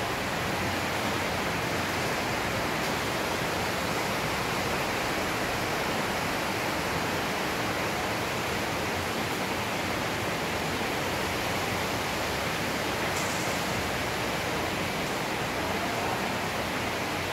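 Steady, even hiss with no change in level and no other sound standing out.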